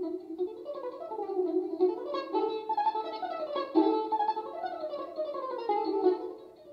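Balalaika music: a concert piece on Russian folk-song themes, played as quick runs of plucked notes rising and falling.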